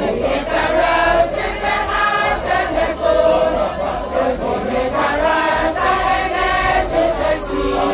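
A mixed group of men and women singing a school anthem together as a choir.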